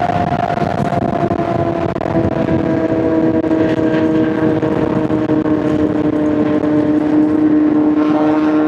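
Honda CBR600RR's inline-four engine running under a steady load, its note held with the pitch sinking slowly.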